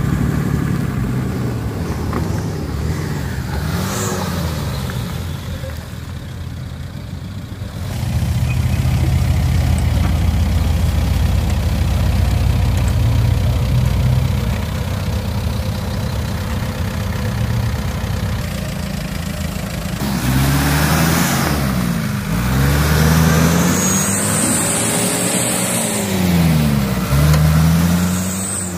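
Off-road vehicle engines labouring through deep mud. There is a steady low engine drone, and from about twenty seconds in an engine revs up and down again and again.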